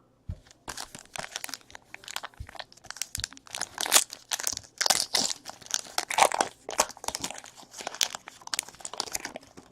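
Trading card pack wrapping crinkling and crackling as it is handled and torn open, in a fast, irregular run of crackles.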